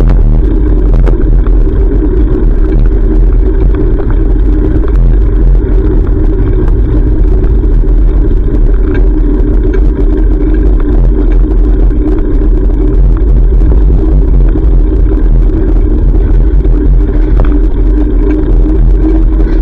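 Loud, steady rumble of a bicycle ride picked up by a GoPro: road and traffic noise with wind on the microphone, and scattered small rattling clicks throughout.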